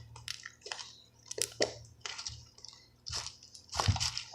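Homemade slime being squished and stretched by hand, giving a run of short, irregular wet squelches.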